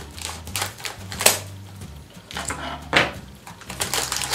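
Scissors snipping through the top of a plastic packet of seeds, with two sharp snips about a second in and near three seconds in, and the plastic crinkling as the packet is pulled open.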